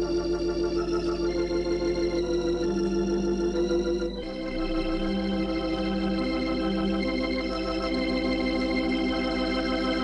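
Organ music playing sustained chords with a steady wavering pulse, moving to a new chord a little after four seconds in.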